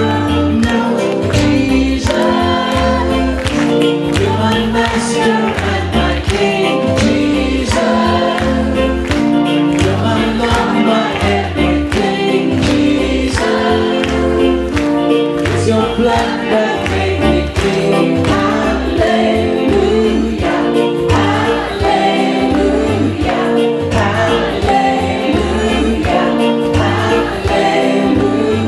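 Christian worship song: voices singing together over music with a steady beat.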